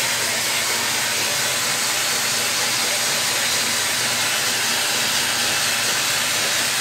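Vacuum cleaner running steadily, a loud even hiss; its suction is what drives the homemade wooden air engine.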